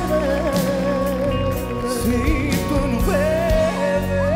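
Live pop ballad: a male voice holds a long note with vibrato over a band with drums and bass.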